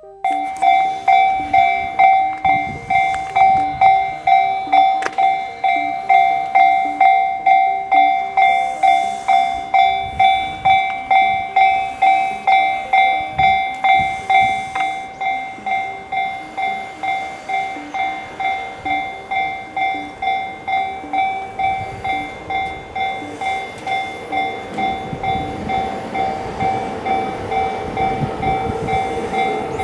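Japanese railway level-crossing warning alarm ringing its repeating "kan-kan", about two beats a second. A train's rumble rises under it over the last several seconds.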